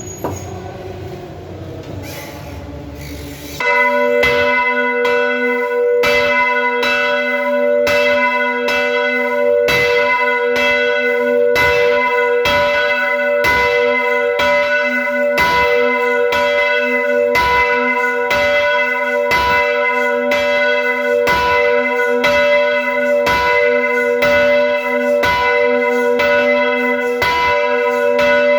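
Church bells pealing. A low rumble gives way about three and a half seconds in to the bells starting suddenly, struck again and again in quick regular strokes so that their ringing tones overlap into one continuous peal.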